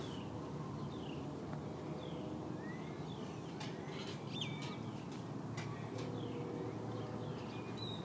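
Small birds chirping over and over, short falling chirps, over a steady low rumble of distant city noise. About six seconds in, a faint chord of steady tones comes in, a distant train horn.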